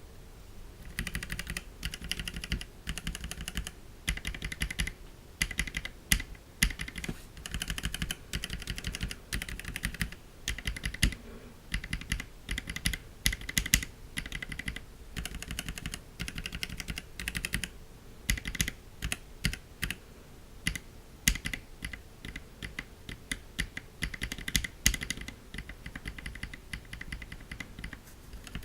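Typing on a mechanical keyboard with a POM (acetal plastic) Kayak case and POM keycaps: runs of quick keystrokes broken by short pauses, with some louder single strokes.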